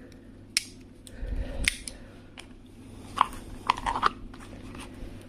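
Victorinox Spirit multitool being worked open and shut: a series of sharp metallic clicks and snaps, about six across a few seconds, as its pliers and tools lock and close with no play in the joints.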